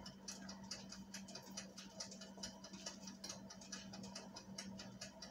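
Faint, rapid, irregular ticking and crackling of food cooking, over a steady low hum.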